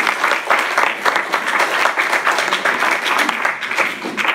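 Audience applauding, a dense, steady run of many hands clapping.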